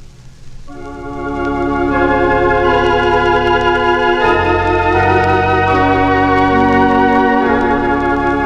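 Organ music: sustained, wavering chords that come in a little under a second in after a brief soft moment, with a deep bass note added from about four seconds in until shortly before the end.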